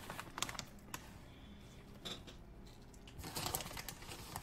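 Plastic bag of shredded Parmesan crinkling as the cheese is shaken out of it, with scattered crackles and taps and a denser burst of crinkling about three seconds in.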